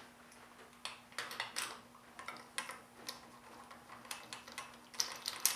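Scattered light clicks, taps and brief scrapes of a hand tool working on the cylinder head of a Honda CB550 engine, busier near the end.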